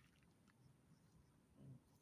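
Near silence: faint outdoor background, with a brief low murmur near the end.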